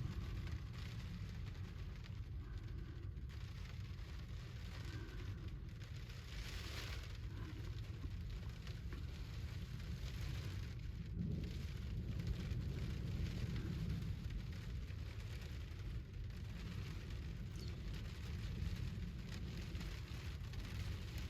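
Rain falling steadily on a pickup's camper shell, heard from inside, with a steady low rumble underneath.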